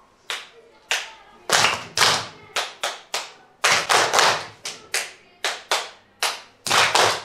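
A class of young children clapping back short rhythms that the teacher claps first, in a call-and-response clapping game. A couple of lighter single claps come first, then louder claps from the whole group in short clusters.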